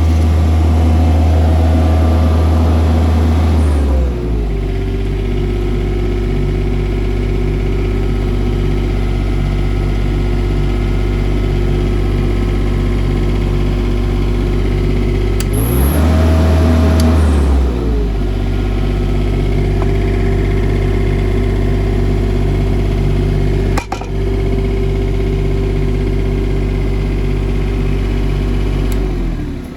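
Denyo BLW-280SSII engine welder's engine running fast, then slowing to a lower idle about four seconds in. Midway it speeds up for a second or two and drops back to idle, with a sharp click about two-thirds of the way through.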